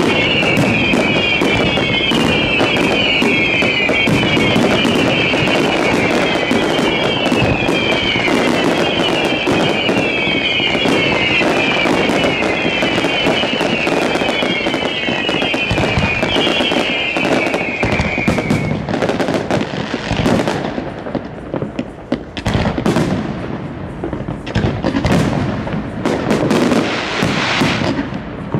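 Fireworks display: a rapid barrage of bangs and crackling, overlaid until about 19 seconds in by a high whistle that falls in pitch and repeats about once a second. After that it thins to separate bangs and crackles.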